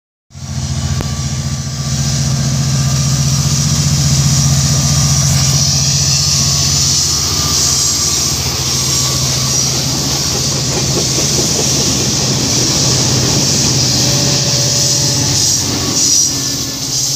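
Amtrak Piedmont passenger train passing, led by an EMD F59PHI diesel locomotive: a steady deep engine drone under a loud hiss and rumble of wheels on rail.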